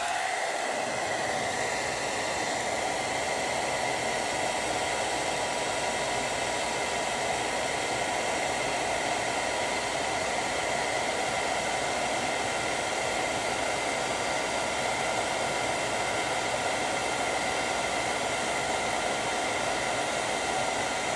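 Revlon hand-held hair dryer running steadily, blowing hot air onto the canvas: a constant rush of air with a faint whine.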